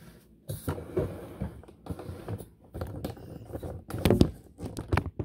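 Irregular handling noises: soft knocks and rustling as bread dough is set into an oiled stainless steel mixer bowl, with a cluster of louder knocks about four seconds in.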